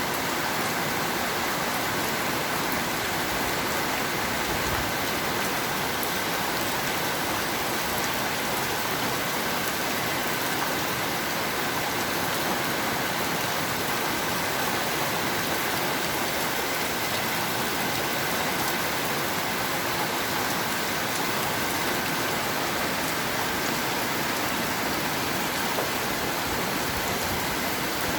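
Steady rain falling: an even, unbroken hiss with scattered faint drop impacts.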